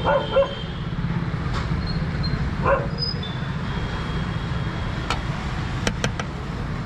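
Steady low rumble of street traffic, with a dog giving short barks at the start and again about three seconds in. A few sharp clicks come near the end.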